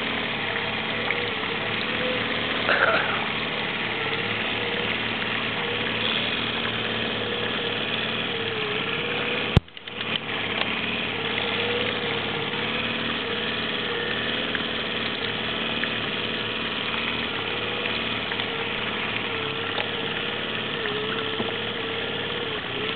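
Boat motor running steadily, its hum wavering slightly in pitch, with one sharp knock about ten seconds in.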